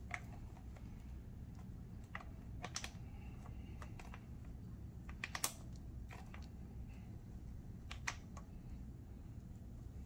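Light, scattered metallic clicks as a rivet-type master link is worked into the ends of a motorcycle drive chain, with the loudest little cluster of clicks about five seconds in.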